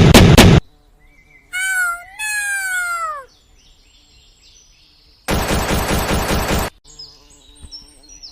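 Edited sound effects: a short burst of rapid pops like gunfire, then two falling, meow-like pitched glides, then a second burst of rapid pops about five seconds in. Faint stepped electronic tones follow near the end.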